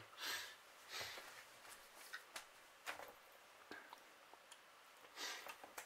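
Near silence in a small room, broken by a few faint rustles and soft taps as someone moves about.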